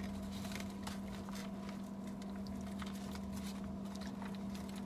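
Eating sounds: salad being chewed and crunched, with many small irregular clicks and taps of plastic forks against foam takeout containers, over a steady low hum.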